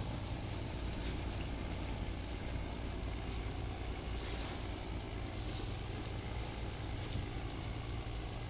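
A boat's engine running with a steady low drone, with water rushing and splashing along the hull.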